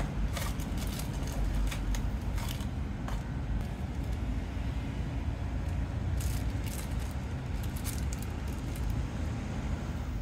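Steady low rumble, with a few light crinkles and clicks of small plastic zip bags and a small cardboard box being handled.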